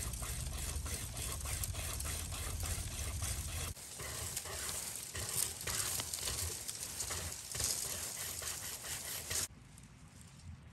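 Wazoo braided steel wire saw rasping rapidly back and forth through a sapling stem, then stopping suddenly about a second before the end.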